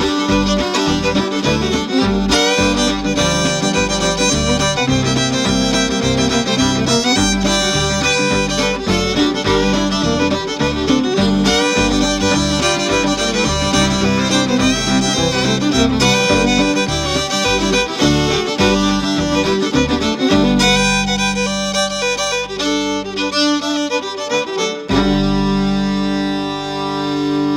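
Instrumental background music with a steady beat. About twenty seconds in the beat drops out, leaving held notes, with one last hit near the end.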